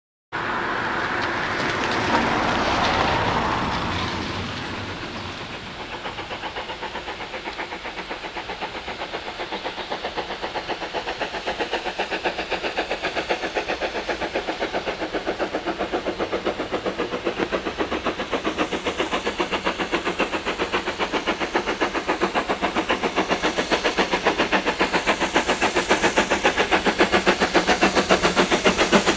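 Steam locomotive working hard: a loud hissing rush in the first few seconds, then a fast, even beat of exhaust chuffs that grows steadily louder.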